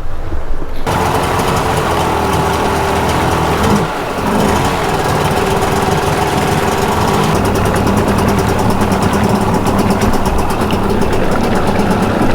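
Personal watercraft engine running steadily, coming in suddenly a little under a second in, with a short dip about four seconds in.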